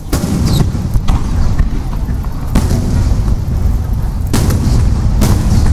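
Aerial fireworks shells bursting in a rapid display: several sharp booms a second or so apart over a continuous low rumble and crackle from the barrage.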